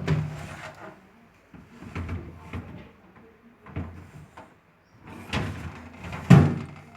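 Refrigerator doors and drawers being opened and shut: a run of knocks and thumps, the loudest a sharp thump about six seconds in.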